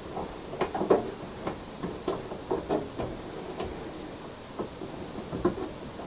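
Scattered light clicks and knocks of 3D printer frame parts and a bolt being handled and fitted as the gantry is held in the base.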